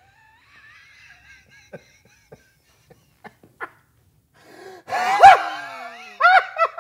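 A man laughing: a faint, high, held-back giggle that breaks out into loud laughter about five seconds in, in repeated rising-and-falling 'ha' pulses.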